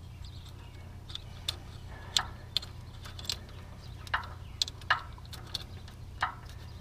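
Steel roller chain clinking in small, irregular clicks as it is worked by hand around a drive sprocket on a New Holland 474 mower-conditioner, over a steady low hum.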